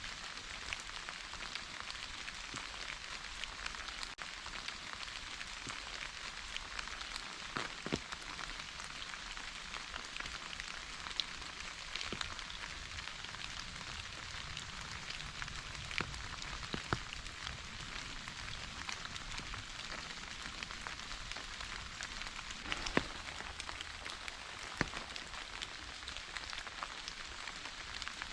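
Steady soft rain falling, an even hiss with scattered individual drops tapping close by.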